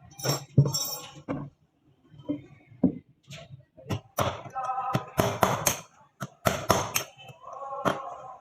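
Irregular hammer blows and knocks on the metal drum assembly of a front-load washing machine being taken apart, some strikes ringing briefly.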